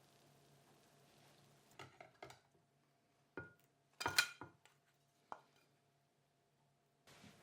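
Kitchenware clinking: a handful of light clinks and knocks, some with a brief ring, the loudest cluster about four seconds in.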